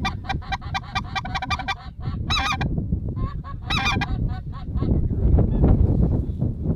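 Geese honking, many short calls in quick succession that die away about four and a half seconds in, followed by strong wind buffeting the microphone.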